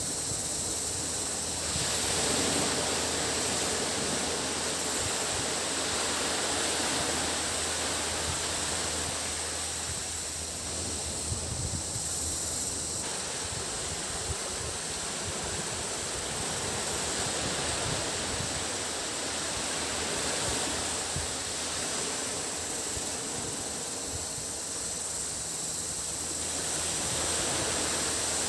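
Waves breaking and washing up the beach, the surf swelling and easing every several seconds, over a steady high-pitched drone of cicadas.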